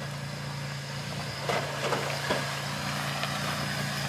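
Off-road truck engine running steadily at low revs, with a few short knocks about a second and a half in.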